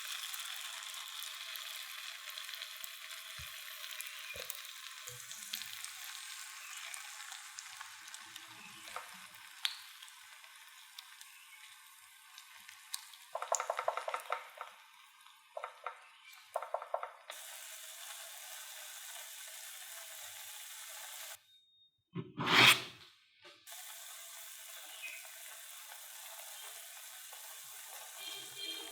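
Oil sizzling steadily in a frying pan as a potato and cheese batter fries. There are a few short scraping sounds midway and one loud clunk about two-thirds of the way through.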